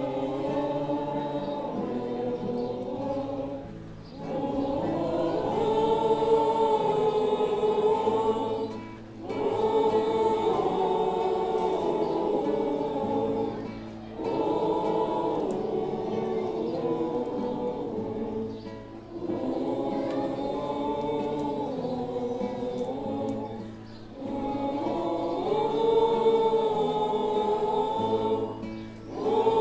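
A crowd singing a song together in unison, accompanied by a guitar. The song moves in phrases of about five seconds, each separated by a short breath pause.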